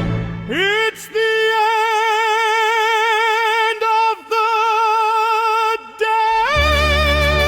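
A single operatic-style sung note held with an even vibrato, swooping up into it at the start and broken by a few brief gaps. About six and a half seconds in it leaps to a higher pitch as low accompaniment enters.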